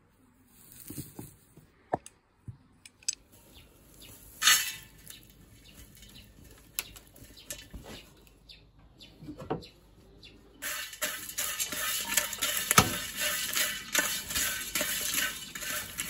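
Dried butterbur root pieces tipped into a metal pot, with scattered light clicks and taps. From about ten seconds in comes a dense, continuous scraping and crackling as a wooden spatula stirs the roots around the pot while they are dry-roasted for tea.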